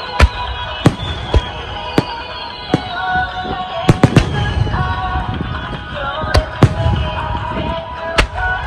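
Aerial firework shells bursting in a string of about ten sharp bangs, several coming in quick pairs, with music playing underneath.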